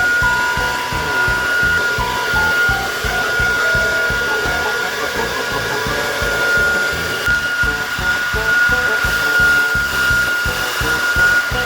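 Blow dryer running steadily, a rush of air with a constant high whine, drying a wet golden retriever's coat after a bath. Light background music plays over it.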